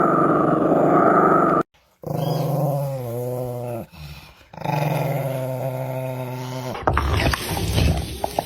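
A dog growling. After a brief break come two long, drawn-out pitched dog vocalisations, the first wavering in pitch. Near the end a rougher, clattering noise takes over.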